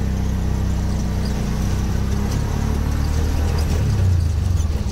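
Auto-rickshaw's small engine running steadily while the rickshaw drives along, heard from the passenger seat, a low drone with road noise.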